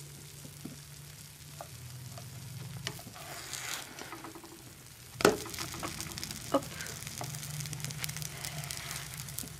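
Oladyi pancakes sizzling and crackling in hot oil in a non-stick frying pan. A slotted spatula slides under them and flips them, knocking sharply against the pan about five seconds in, followed by a few lighter clacks.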